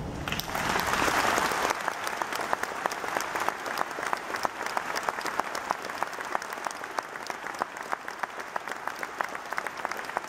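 Audience applauding: a dense burst of clapping starts about half a second in, then settles into a steady stream of individual claps.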